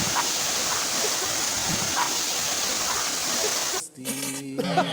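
Steady rushing of a waterfall. Near the end it cuts off abruptly and a brief low steady tone comes in.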